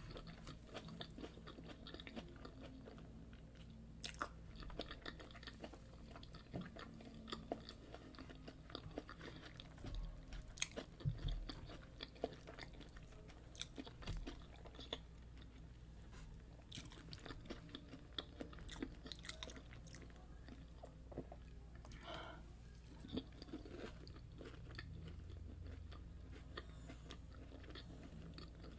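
Close-miked chewing of fried yam and egg sauce, with many short crunchy, crackly bites and mouth clicks.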